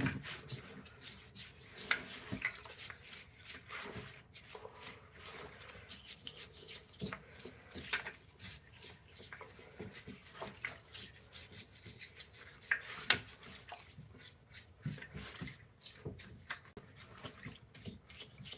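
Hand work on a wooden carving: irregular rubbing and scraping, broken by scattered small clicks and taps.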